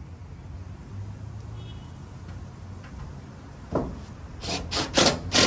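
Tools being handled and set down: quiet at first, a short scrape nearly four seconds in, then four loud rasping clatters in quick succession near the end.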